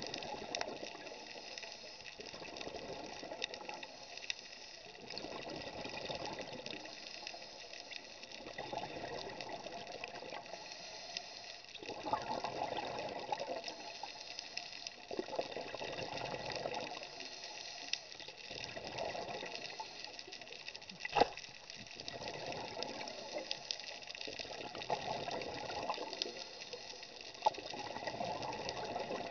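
Scuba regulator exhaust bubbles rushing past underwater, surging about every three seconds with each breath, over a steady hiss. A single sharp click about 21 seconds in.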